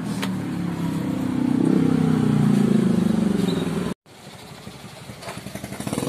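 A motorcycle engine running close by, its pitch rising and falling as it swells to its loudest about two to three seconds in. It cuts off abruptly just before four seconds in, followed by a fainter, uneven pulsing.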